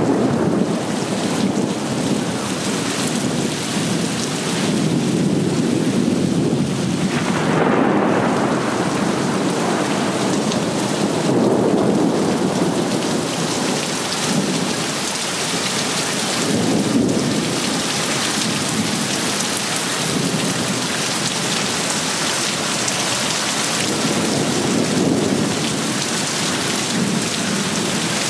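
Heavy rain pouring steadily in a thunderstorm, with low rumbles swelling and fading every several seconds.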